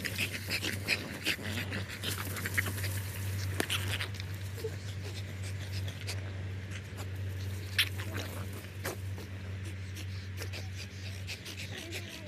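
French bulldog panting and snuffling, with short scratchy scuffs of paws in sand, over a low steady hum.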